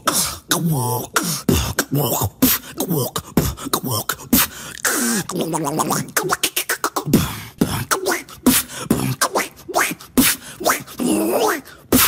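A beatboxer making a fast run of vocal sound effects with his lips and mouth: sharp clicks and pops mixed with short pitched glides.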